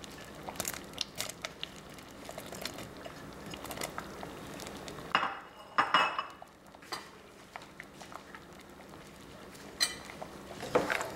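Diced zucchini being tipped from a bowl into a pot of simmering soup: light clinks and scrapes of kitchenware against the bowl and the pot, with a louder clatter about five to six seconds in and a single knock near the end.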